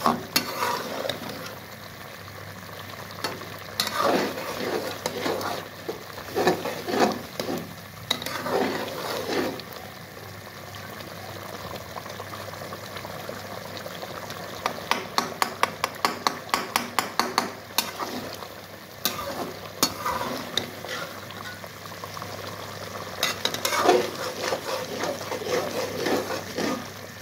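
Chicken and tomatoes sizzling in a metal karahi on high flame, while a slotted metal spatula stirs, scrapes and taps against the pan. Midway there is a quick run of strokes, about five a second, for a few seconds.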